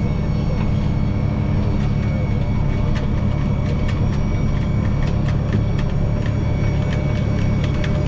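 Tractor engine running steadily under load, heard from inside the cab, with a forage harvester chopping corn alongside. Scattered light clicks and ticks run over the drone.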